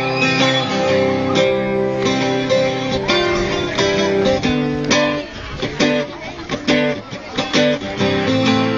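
Acoustic guitar music, chords strummed, with a sparser stretch of sharp, separate strums past the middle.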